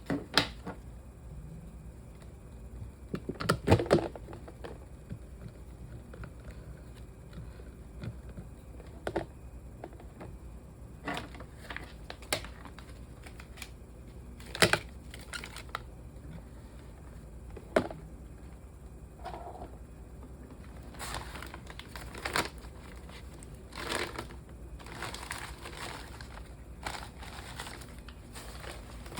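Objects being handled: scattered clicks and knocks, the loudest a cluster a few seconds in, with crinkling and rustling growing more frequent in the second half.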